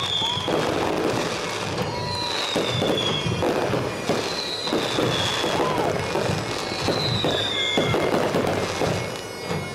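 Fireworks display: aerial shells bursting and crackling many times in quick succession.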